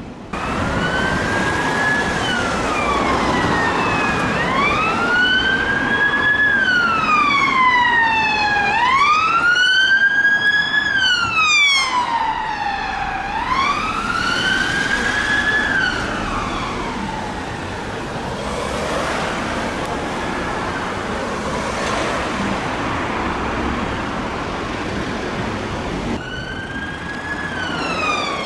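Police vehicle siren on wail, rising and falling in slow sweeps about every four seconds, with a second siren overlapping briefly in the middle. It fades into traffic noise about two-thirds of the way through, and a siren starts again near the end with quicker sweeps.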